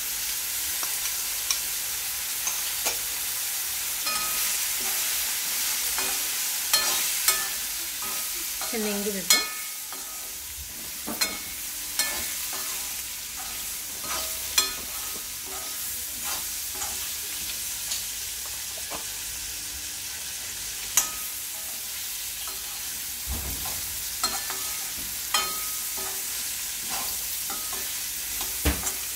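Coconut pieces and karonda frying in oil in an aluminium kadai with a steady sizzle, while a steel spoon stirs them, clinking and scraping against the pan now and then.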